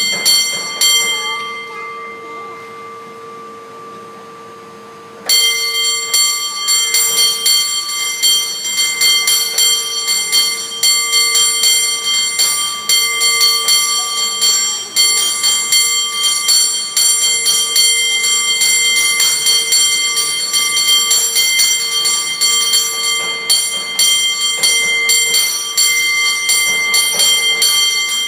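San Francisco cable car bell rung in rapid, rhythmic strikes. After a short opening burst the bell is left to ring out and fade for a few seconds, then the fast ringing starts again about five seconds in and keeps going.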